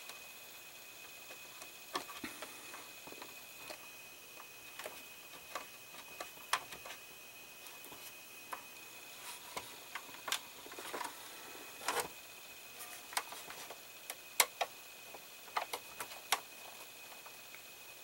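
Hand screwdriver driving a small screw into a plastic model-car interior panel: scattered, irregular light clicks and ticks of the tool turning and the parts being handled.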